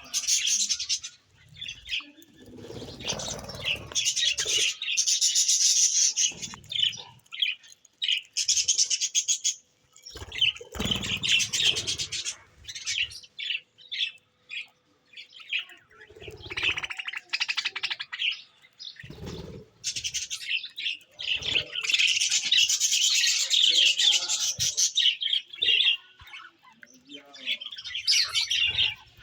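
Small birds chirping and chattering in long, fast twittering runs, broken by short pauses, with a few low thuds among them.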